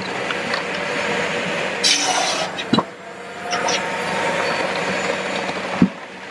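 Firewood processor running, its hydraulic splitter pushing a log round through a multi-way splitting wedge: a steady machine noise with a short hiss about two seconds in and two knocks, near the three-second mark and near the end.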